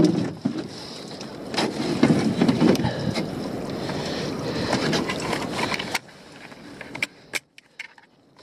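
Lobster pot being handled with rubber gloves: knocks and rubbing against the pot's netting and frame, over a rushing noise, which cuts off suddenly about six seconds in, leaving a few sharp clicks.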